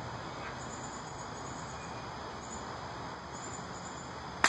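Insects chirping in short repeating pulses over a steady outdoor background, ending with a sharp crack right at the end as an arrow is shot from the bow.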